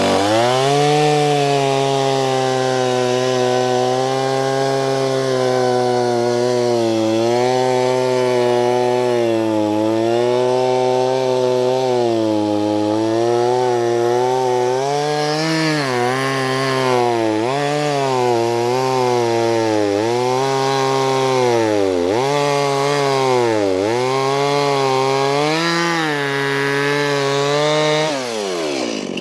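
Chainsaw cutting through a log at full throttle, its engine note sagging and recovering over and over as the chain bites into the wood, then dropping away and stopping near the end. The cut takes about ten inches more off the end of a dead log to get past a little rot into sound wood.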